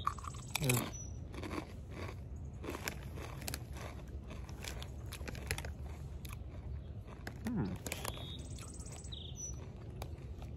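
Crunchy Tapatío-flavoured chip being bitten and chewed close to the microphone, a steady run of sharp crunches. A bird chirps briefly about a second in and again near the end.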